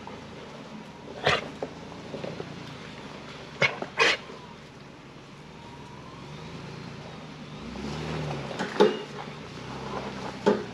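Off-road 4x4 engine running steadily as it crawls up a rutted dirt trail, swelling a little near the end, with a handful of sharp clicks or knocks.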